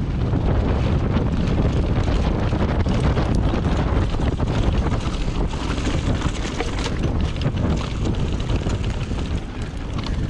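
Downhill mountain bike running fast over a dirt trail: wind buffeting the action camera's microphone and tyre rumble, with many short rattles and knocks from the bike over bumps. There is a brief lull in the noise near the end.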